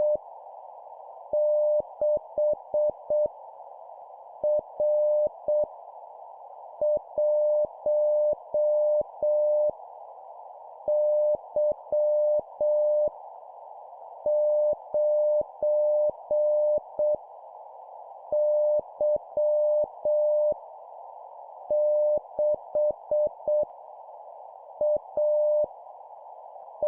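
Morse code (CW) practice tone at 7 words per minute, a steady beep keyed on and off in dots and dashes, sending random letters and numbers one character at a time with pauses of about a second between them. A steady narrow hiss runs underneath, and faint clicks mark where the tone starts and stops.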